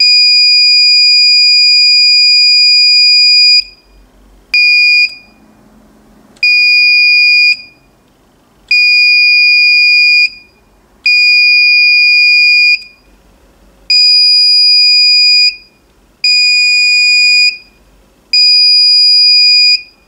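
Small electronic buzzer of a 9 V reed-switch alarm circuit sounding a loud, steady, high-pitched tone. It cuts in and out eight times in uneven lengths, the first about three and a half seconds long and the rest about one to one and a half seconds each, as the magnet is moved away from the reed switch and back, setting the alarm off and silencing it.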